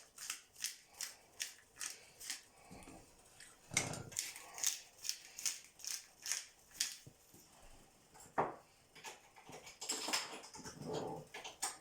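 Black pepper grinder twisted over the pot, giving a regular run of crunchy grinding strokes, about three a second. The strokes stop about seven seconds in, followed by a few softer clatters.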